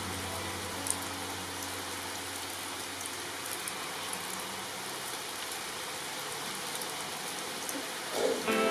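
Steady rain falling on garden shrubs and leaves, an even hiss with the odd louder drop. Music comes in near the end.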